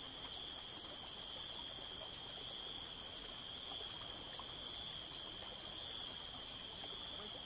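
Rainforest insects calling: a steady high-pitched buzz, with faint regular chirps about twice a second over it.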